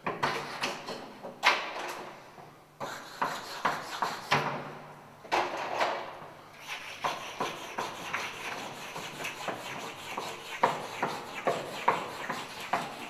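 White chalk drawn hard across a blackboard in fast, looping strokes: an irregular run of scratchy swipes and sharp taps.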